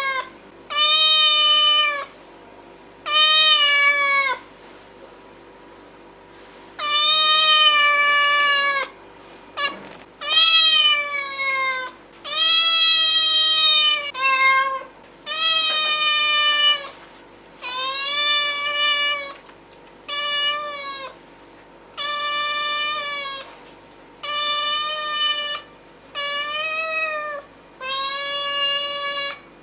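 A domestic cat meowing over and over: about a dozen long, drawn-out meows, one every two seconds or so, each at much the same pitch.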